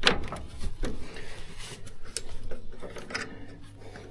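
Hand tools clicking, knocking and scraping on a seized nut on a round baler's chain tensioner arm, in irregular sharp metal clicks as it is worked at.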